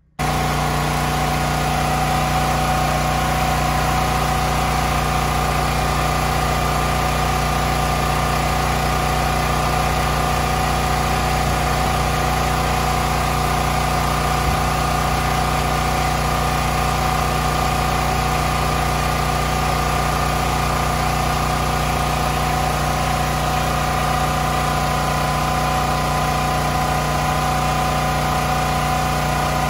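Champion 9200-watt portable generator's single-cylinder engine running at a steady, even speed.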